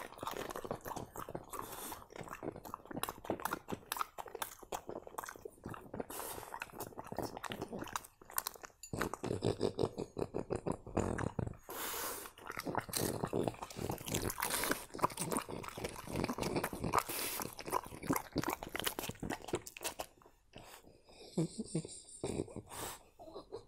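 French bulldog chewing and licking food from a bowl up close: a dense run of rapid mouth clicks and crunching, with a couple of short pauses.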